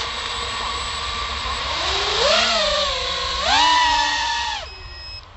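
Small FPV racing quadcopter's electric motors whining at a steady pitch while armed on the pad, then spooling up twice as it is throttled into the air, the pitch rising about two seconds in and again at three and a half seconds, before dropping away near the end.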